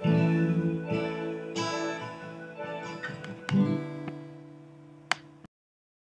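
Plucked string instrument: chords struck about three times, each ringing and fading away. A sharp click comes near the end, and then the sound cuts off abruptly.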